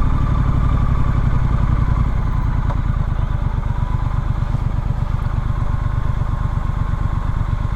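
Triumph Street Scrambler's 900 cc parallel-twin engine running steadily under a riding motorcycle, its note dropping slightly about two seconds in.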